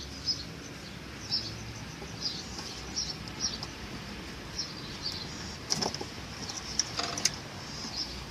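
Small birds chirping repeatedly in short high calls, with two sharp clicks about six and seven seconds in.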